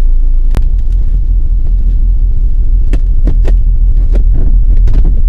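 Loud, steady low rumble of a moving road vehicle, with a few sharp knocks about half a second in, around three seconds in and near the end.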